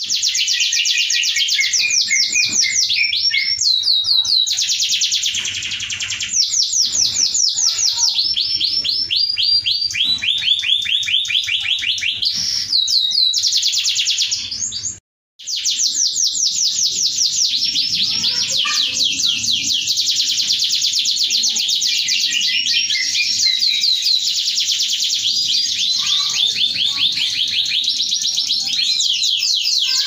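Domestic canary singing a long, continuous song of fast, high trills and rolls, with a brief gap about halfway through.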